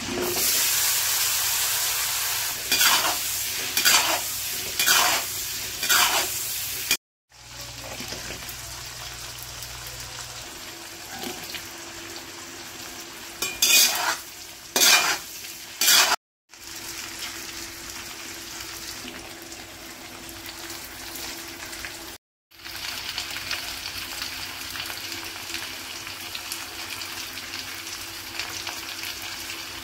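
Vegetables sizzling in hot oil in a wok, with a spatula stirring and scraping the pan in short strokes, several in the first six seconds and a few more around the middle. The sizzling cuts off abruptly three times for a moment.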